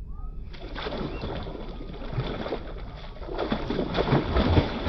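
Hooked fish thrashing and splashing at the water's surface on the line, starting suddenly about half a second in and growing more violent near the end. A bird chirps briefly at the very start.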